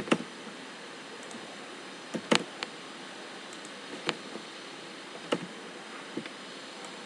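Scattered clicks of a computer keyboard and mouse: single clicks and a quick run of three about two seconds in. A steady hiss runs underneath.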